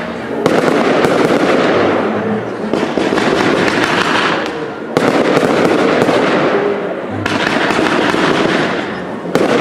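Cake fireworks firing sprays of sparks: a dense, loud hiss full of crackles that surges anew about half a second in, about five seconds in, and again near the end, each surge dying away over a few seconds.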